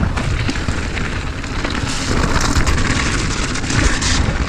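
Mountain bike running fast down a dirt singletrack: a steady deep rumble of tyres on the trail and wind buffeting the chest-mounted camera's microphone, with frequent rattles and knocks from the bike over the rough ground.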